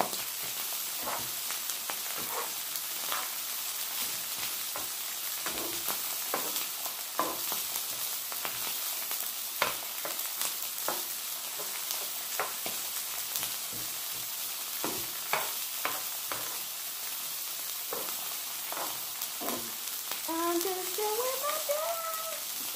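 Fried rice sizzling on a hot flat-top griddle, crisping in sesame oil and soy sauce, with a steady hiss. A spatula scrapes and taps against the griddle at irregular moments as the rice is stirred.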